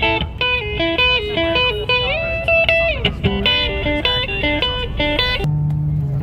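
Electric guitar playing a lead melody of quick single notes with bends and slides. Shortly before the end it changes to lower, held notes.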